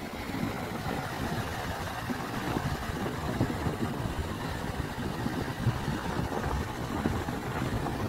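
Sea waves breaking and washing up a sandy beach, with wind blowing across the microphone, a constant uneven rushing noise with no pitched tone in it.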